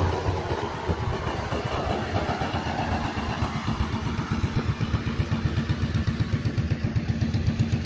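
DJI Agras T30 six-rotor seeding drone's rotors droning as it flies away, the sound fading over the first few seconds, over a low, regular throb of about three to four pulses a second.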